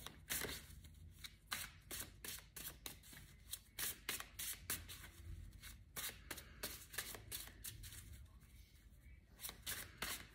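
A tarot deck being shuffled by hand, faint: many short, soft card slaps and flicks, several a second.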